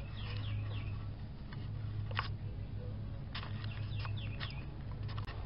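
Birds chirping in short falling notes over a steady low hum, with a light click about two seconds in.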